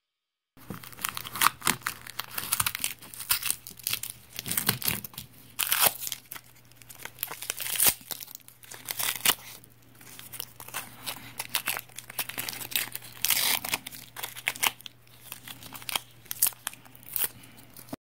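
Stick-on hook-and-loop (Velcro) strips being pulled apart again and again: a scratchy, crackling rip in repeated bursts, some louder than others.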